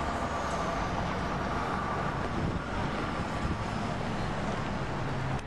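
Steady city traffic noise: a continuous rumble of passing vehicles with a low engine hum.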